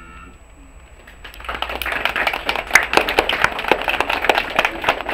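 An audience of schoolchildren applauding, the clapping breaking out about a second in and continuing as a dense, irregular patter of many hands.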